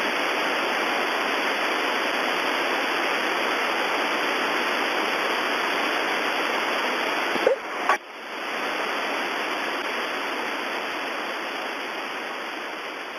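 Steady hiss of static on an air traffic control radio frequency with no voice on it, the tower's call to the flight going unanswered. About seven and a half seconds in, two sharp clicks and a brief dropout break the hiss before it resumes.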